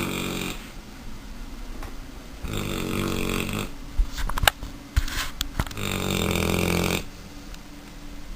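Mastiff puppy snoring, one snore of about a second roughly every three seconds. A few sharp clicks come in the gap between the second and third snores.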